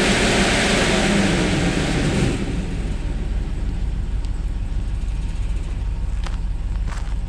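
An engine running with a steady low rumble, under a louder hiss that fades away over the first two seconds or so.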